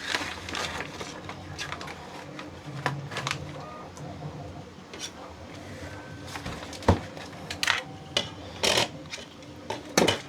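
Plastic filament spools and a filament refill being handled and fitted together, giving scattered knocks and clicks over a low steady machine hum.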